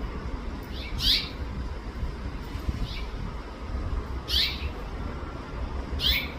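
House finch calling: four short, downward-sliding chirps, spaced a second and a half to two seconds apart, the second one fainter. A steady low rumble runs underneath.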